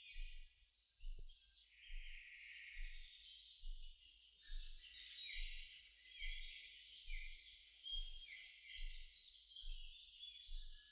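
Soundtrack jungle ambience of many small birds chirping and twittering, high and busy, with a soft low thump repeating a little more than once a second underneath.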